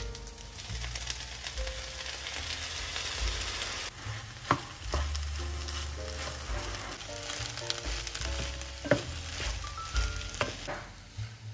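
Diced eggplant and chopped cherry tomatoes sizzling in a non-stick frying pan while a wooden spatula stirs them, with a few sharp knocks of the spatula against the pan. The sizzle is strongest in the first few seconds, as the tomatoes go in.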